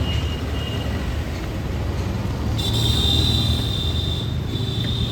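A motor running steadily with a low hum; a high steady whine joins about two and a half seconds in.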